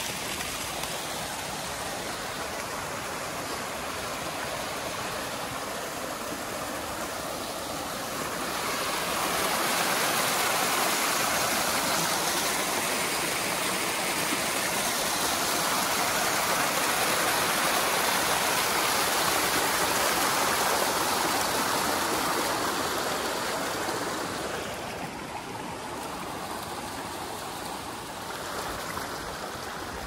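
Steady rush of flowing water from a stream or cascade. It swells louder about eight seconds in and eases back down a little after twenty seconds.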